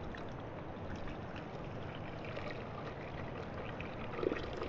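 Liquid poured in a steady stream from a plastic jug into a metal camp pot, trickling and splashing, with small ticks growing busier near the end.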